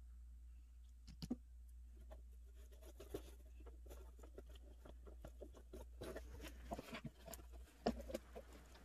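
Small hands handling and pressing cardboard: light scratching, rustling and scattered taps, busier in the second half, with a sharper tap near the end.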